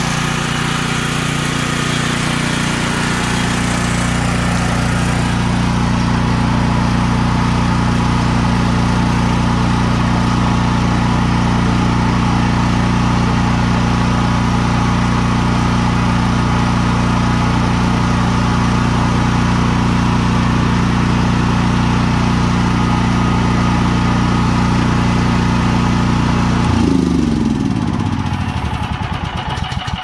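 Briggs & Stratton 2100 series 420cc single-cylinder engine of a Troy-Bilt XP 10,500-watt generator running steadily, back in running order with a new carburetor and a fuel system flushed of bad gas. About 27 seconds in it is shut off and winds down to a stop.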